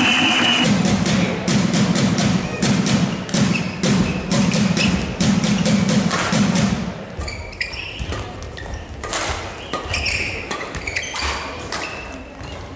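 A rhythmic low beat under dense clapping for about the first seven seconds, then it stops. A badminton rally follows, with racket strikes on the shuttlecock about once a second and the squeak of court shoes.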